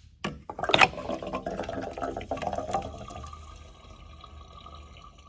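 Fuel injector cleaner being poured from its bottle into the fuel filler neck, glugging and gurgling after a sharp click about a second in, then tapering off as the bottle empties.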